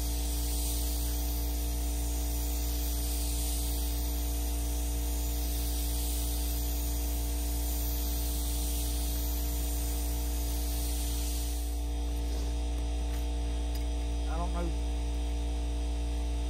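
Paint spray gun hissing as it sprays paint onto a canoe hull, over a steady motor hum from the air supply. The hiss stops about twelve seconds in, leaving the hum.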